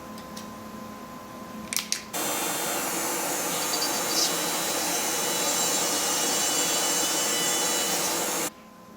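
A couple of sharp clicks, then a motorised machine starts and runs with a steady, loud rushing noise for about six seconds before cutting off suddenly.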